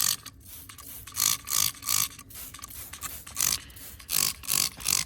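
Spray bottle squirting aluminum cleaner and brightener onto an ATV engine: about eight short hissing sprays, in quick clusters of two or three.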